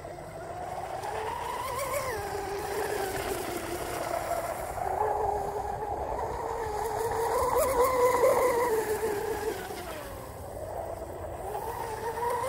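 Brushless electric RC catamaran running at speed in turns, its motor and propeller giving a high whine that rises and falls in pitch as the boat circles. The whine is loudest about eight seconds in and dips a couple of seconds later before building again.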